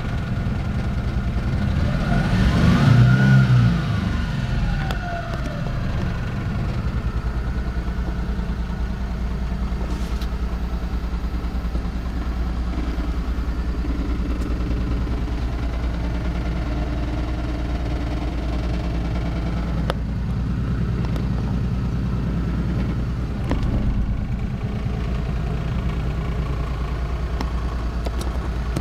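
Suzuki Carry DD51T kei truck's small three-cylinder engine idling steadily, heard from inside the cab. About two seconds in it is revved once, rising and falling back to idle over about three seconds.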